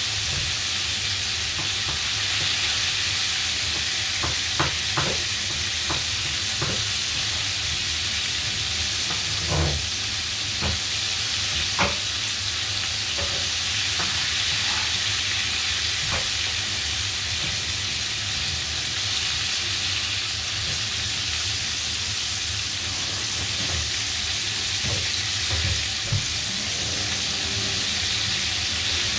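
Coated chicken pieces frying in bubbling oil in a frying pan: a steady sizzle with scattered pops and crackles.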